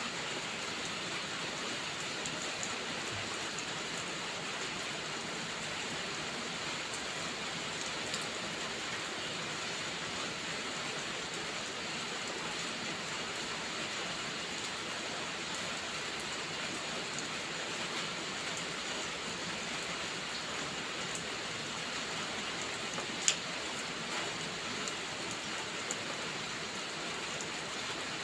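Steady heavy rain, an even wash of noise, with a few sharp crackles from a wood fire. The loudest crackle comes about two-thirds of the way through.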